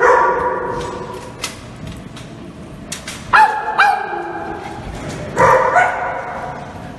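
Small dogs barking and yipping: a drawn-out bark right at the start, two short sharp yips falling in pitch about three and a half seconds in, and another burst of barking near the end.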